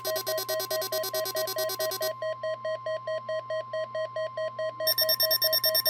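Weather alert radio alarm beeping rapidly and evenly over the steady 1050 Hz NOAA Weather Radio warning alarm tone, the alert that opens a routine weekly test. The beeping turns quieter about two seconds in and comes back louder near the end.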